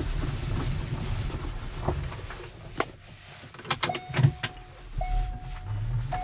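Small electric microcar pulling in to park: a low rolling rumble, then several clicks and a steady electronic warning beep sounding in long tones about a second each.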